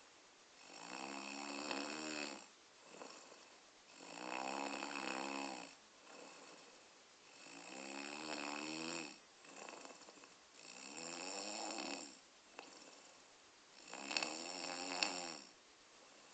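A sleeping person snoring loudly and regularly, five long pitched snores about three seconds apart, each rising slightly in pitch as they breathe in.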